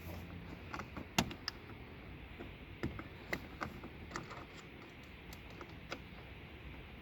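Irregular light clicks and taps of hand work on plastic car interior trim, as a trim screw is fitted; the sharpest click comes about a second in.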